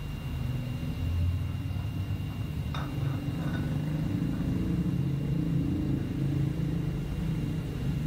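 A steady low rumble, with one short sharp click-like sound about three seconds in.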